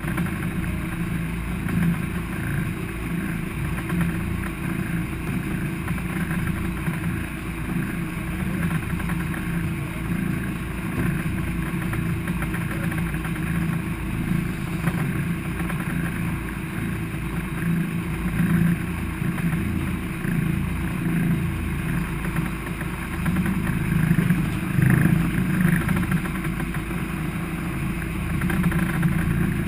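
Sportfishing boat's engine running steadily underway, a continuous low hum.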